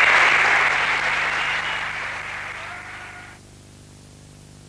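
Audience applauding after a stage skit, dying away over a few seconds and cut off abruptly about three and a half seconds in, leaving only a low steady hum.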